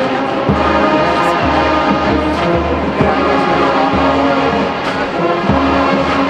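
Marching band playing: brass section sounding held chords and melody over drums.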